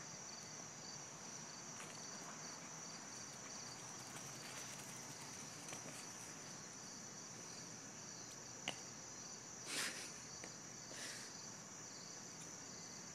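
Crickets chirring, a faint continuous high trill, with a sharp click a little before nine seconds in and two short bursts of noise around ten and eleven seconds in.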